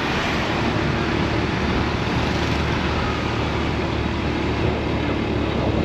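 Steady engine and road noise of a moving motorized two-wheeler.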